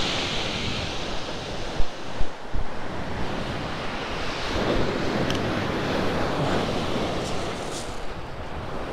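Sea waves breaking and washing up a shingle beach in a steady rush, swelling about four and a half seconds in. Wind buffets the microphone with a few gusty thumps around two seconds in.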